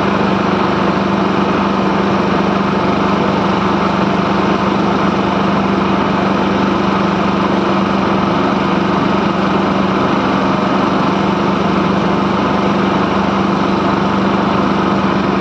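Motor of a wooden river boat running steadily under way, a loud constant drone that holds the same pitch throughout.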